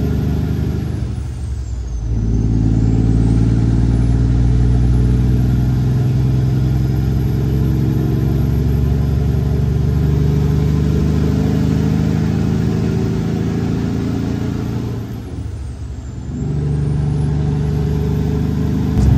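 A semi truck's diesel engine pulling steadily on the highway, heard from inside the cab, with a thin high whine above it. About 2 s in and again about 15 s in, the engine note drops away briefly and the whine slides down and climbs back as the truck changes gear.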